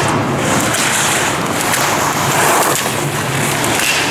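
Skis scraping and carving on groomed snow through slalom turns, a steady, loud hiss.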